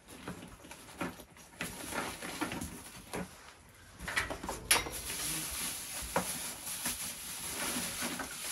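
Packing paper and plastic wrapping rustling and crinkling as hands dig through a bucket of packing and pull out a wrapped item. The rustle is patchy at first and grows denser and steadier about halfway through, with one sharp click a little past the middle.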